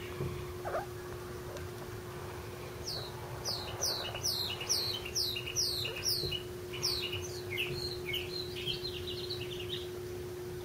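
A songbird singing: a quick run of about a dozen high notes, each sliding downward, then a lower jumbled twittering.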